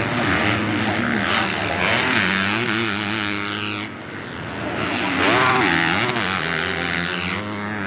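Four-stroke motocross race bikes revving hard, the engine note repeatedly climbing and falling as the throttle is worked. The sound dips briefly about four seconds in, then climbs again.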